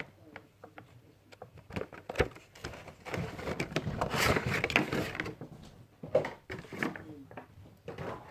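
Cardboard box and plastic packaging of a Funko Pop figure being handled and opened: scattered clicks and knocks, with a longer stretch of rustling about three seconds in.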